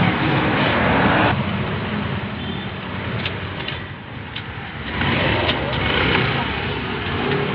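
Traffic on a busy city road: cars, trucks and motorcycles passing by in a steady rush, swelling loudest near the start and again about five seconds in.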